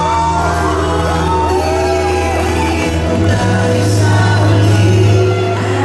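A man singing into a microphone over a backing track with a steady bass line.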